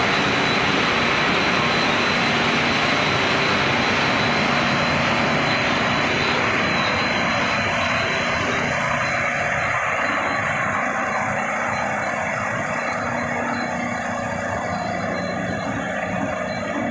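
Steady machine noise of a snack-food production line running, with its conveyors and cooling fans. A thin high-pitched whine sits over it and fades away in the second half.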